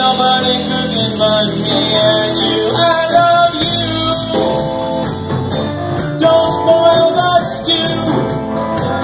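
Live blues band playing electric guitars, electric bass and drums, with held lead notes over the rhythm.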